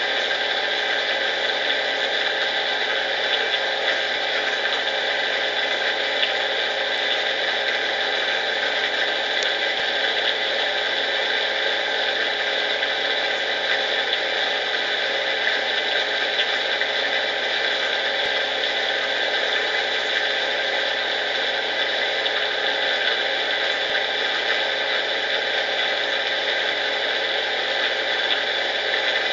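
Consul washing machine in its intermediate spin cycle: a steady mechanical whir with a fast, even rattle, with the hose banging against the machine as it spins.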